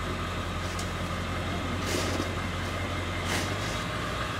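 Cat 268B skid steer loader's diesel engine running steadily, a low drone, as it pushes snow. Two brief rushing noises come about two seconds in and again a little over a second later.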